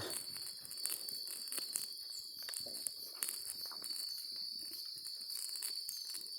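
Insects droning at one steady high pitch, with light scattered clicks and rustles underneath.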